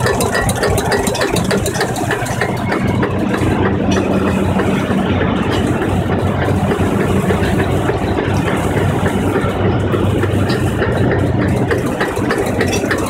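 Single-cylinder air-cooled Eicher diesel tractor engine running steadily, its firing strokes beating evenly.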